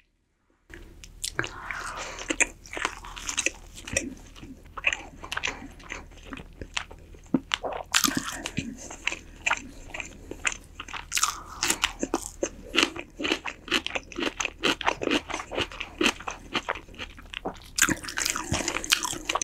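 Close-miked eating of roasted chicken and pickled vegetables: steady chewing with many sharp, crisp crunching bites, starting just under a second in.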